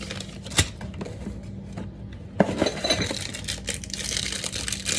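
Sushi kit utensils and dishes clinking and knocking as they are handled and taken out of the box: a click just after half a second, a sharper knock with a brief ring about two and a half seconds in, then a run of small clicks and rustling.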